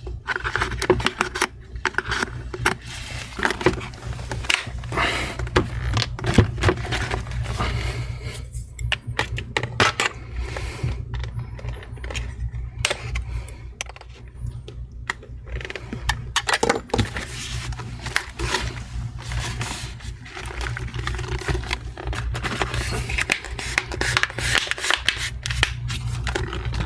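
A pointed tool scraping, tapping and clicking against a laptop's plastic chassis at the hinge, in many small irregular clicks and scrapes, as a snapped piece of plastic lodged in the hinge is picked at.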